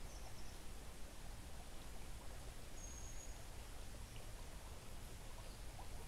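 Faint, steady outdoor ambience of a quietly flowing forest creek, with one short, high-pitched bird call about three seconds in.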